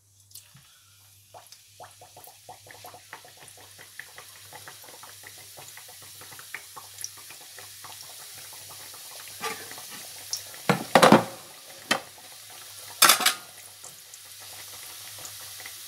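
Dough pastries frying in hot oil in a frying pan, a fine crackling sizzle that slowly grows. A metal spatula knocks and scrapes against the pan a few times about two-thirds of the way through, loudest twice near the end.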